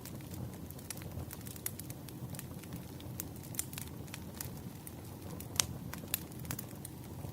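Wood campfire burning with a steady low rumble of flame and frequent sharp crackles and pops, the loudest pop about five and a half seconds in.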